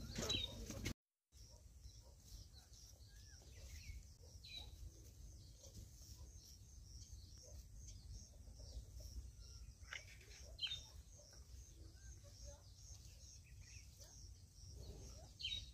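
Faint rural outdoor ambience: a steady high chirping repeating about two or three times a second, with a few sharper bird chirps scattered through, over a low wind rumble.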